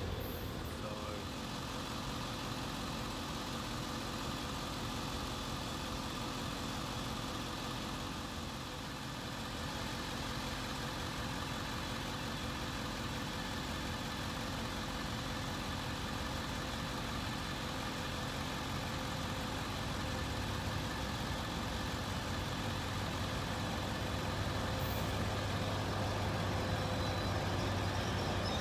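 NJ Transit ALP-45DP dual-mode locomotive approaching with a train of bilevel coaches, its steady engine hum growing louder over the last several seconds as it draws near.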